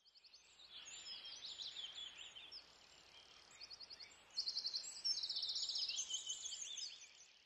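Birds chirping and trilling, many quick overlapping calls over a soft background hiss, louder in the second half and fading out at the end.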